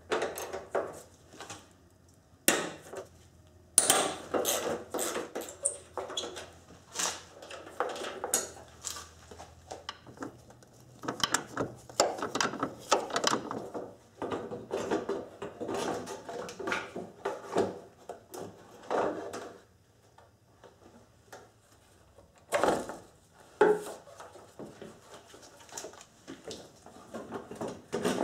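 Irregular clicking, knocking and rattling of a hard plastic headlight housing as it is worked loose and lifted out of its mounting in the car's front end.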